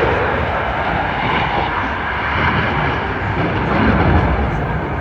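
Eurofighter Typhoon's twin turbofan jet engines at high power during a fast display pass, a loud continuous roar that swells a little near the start and again about four seconds in.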